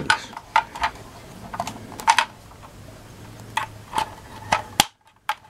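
Hard plastic toy parts of a Playmobil pickup clicking and clattering as they are handled and fitted together by hand, a few sharp, irregularly spaced clicks. The sound cuts out suddenly for a moment near the end.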